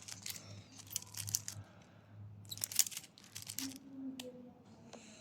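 Handling noises from a wristwatch and its plastic packaging: crinkling and scraping, with scattered light clicks.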